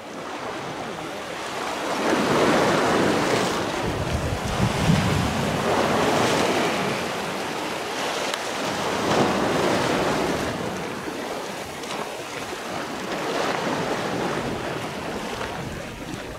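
Sea waves washing onto a rocky shore, the surge swelling and falling back about every three to four seconds, with wind rumbling on the microphone.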